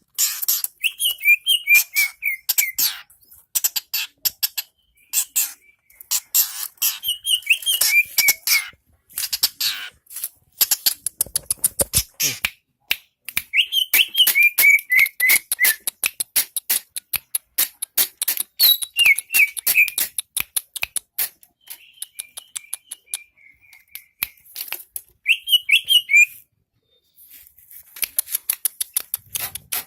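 Long-tailed shrike (cendet) singing: fast runs of sharp, high, harsh ticking notes, broken every few seconds by short falling whistled phrases, with a few brief pauses.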